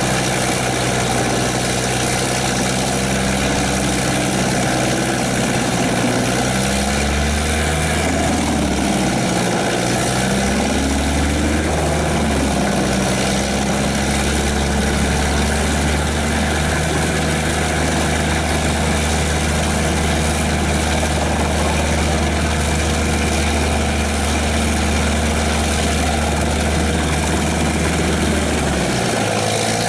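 Heavy engine of a tracked wood chipper running loud and steady. Its pitch sags and recovers a few times.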